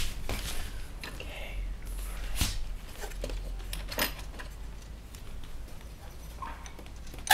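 Scattered clicks and knocks from hands handling and fitting parts inside a 3D printer's aluminium-extrusion frame, over a steady low hum.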